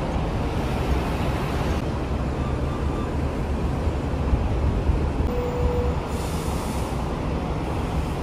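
Steady city road traffic: the rumble of double-decker buses, cars and trucks passing, with a short tone about five seconds in and a brief hiss about a second later.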